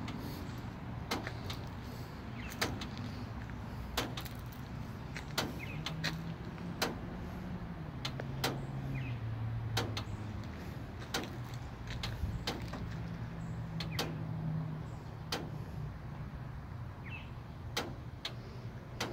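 A vehicle engine running steadily, its low hum shifting slightly in pitch, with sharp clicks recurring about every second and a half.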